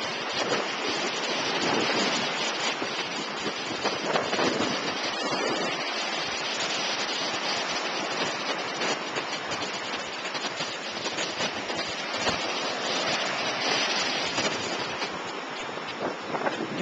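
Lake waves breaking and washing up on a sandy shore: a steady hiss of surf that swells and eases several times.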